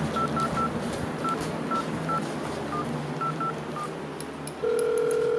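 Telephone keypad beeps as a number is dialled: about a dozen short tones at an uneven pace. A steady ringing tone follows near the end and lasts about a second and a half.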